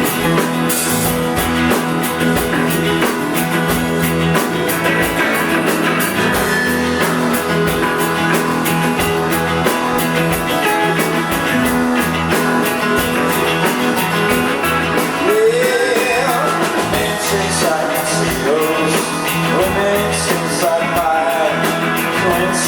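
Live rock band playing, with electric guitars and drums; a singing voice comes in about two-thirds of the way through.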